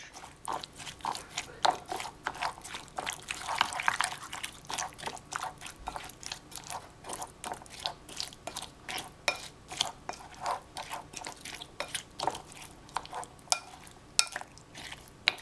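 Wooden spoon stirring thick yogurt and sliced cucumber in a ceramic bowl: wet squelching with irregular light clicks, several a second.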